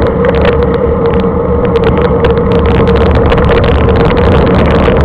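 Bicycle coasting fast down a mountain road: loud, steady wind and road noise on the bike-mounted microphone, with a steady hum and many short rattling clicks.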